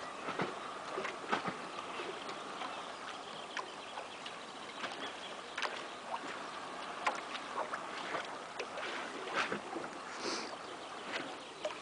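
Choppy lake water lapping and splashing: a steady wash of water with many small, irregular splashes.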